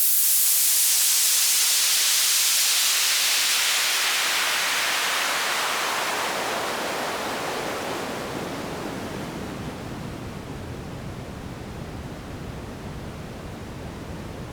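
Downlifter sound effect: a hiss of synthesized noise that starts suddenly and sweeps slowly downward in pitch, fading gradually over more than ten seconds.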